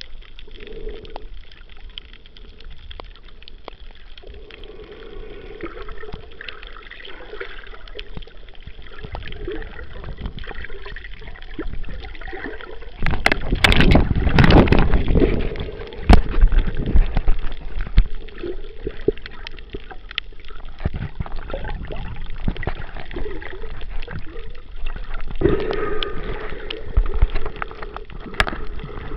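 Water gurgling and sloshing, heard muffled through an underwater camera, with scattered sharp clicks and a louder rush of water lasting a couple of seconds near the middle.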